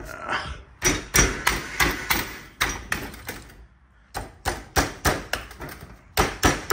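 Repeated sharp knocks, about three a second, in runs broken by a short pause in the middle, as the rusted, stuck front spring-plate hardware of a Club Car DS golf cart is struck to knock it loose.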